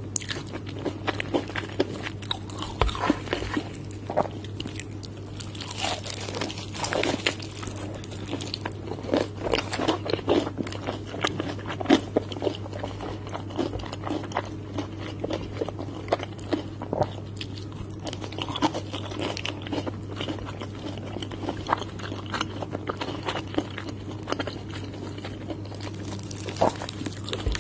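Close-miked biting and chewing of crispy, batter-coated fried chicken: a dense run of sharp crackly crunches from the fried crust, going on throughout, with a steady low hum underneath.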